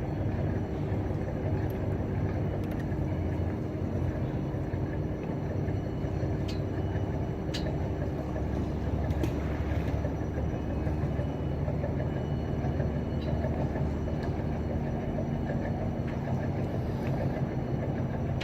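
Steady low drone of a large running engine, with a few held low tones in it and a couple of faint clicks about six and seven seconds in.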